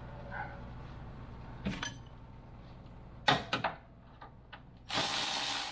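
Metal clicks as a new engine coolant temperature sensor is fitted into a radiator hose, then a short burst of a small air ratchet running near the end as it is tightened, over a steady low hum.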